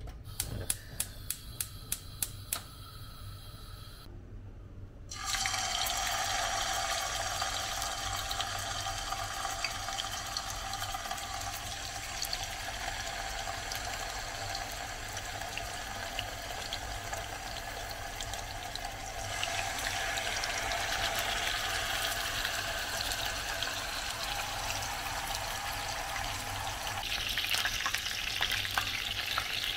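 A quick run of sharp clicks, then from about five seconds in a steady sizzle of saffron-coated chicken pieces frying in hot oil in a skillet, growing louder twice later on.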